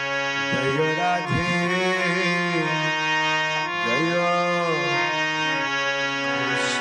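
Traditional devotional-style music: a free-reed keyboard instrument holding sustained chords, with a melody line that glides up and down in pitch twice.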